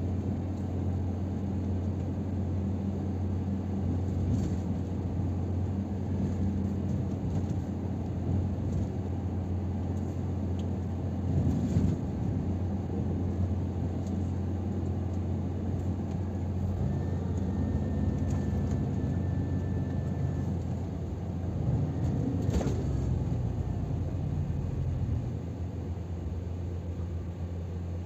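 Scania R500 truck's diesel engine and road noise heard inside the cab while driving: a steady low drone with a couple of short knocks, one about twelve seconds in and one about twenty-two seconds in. The deepest rumble eases off near the end.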